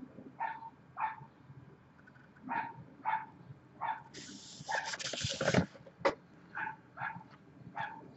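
A dog barking repeatedly in the background, short barks about every half second to second with a brief pause around two seconds in. About halfway through there is a louder paper rustle as a book page is handled and turned.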